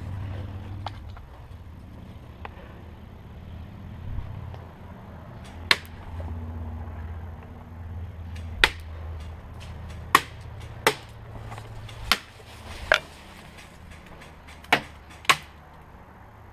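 Airsoft gunfire: about eight sharp single shots at irregular intervals, the first about six seconds in, over a low steady rumble.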